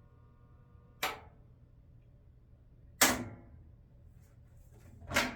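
Maytag MVWP575GW commercial washer's faint steady hum cuts off with a sharp click about a second in, followed by two louder sharp clicks about two seconds apart.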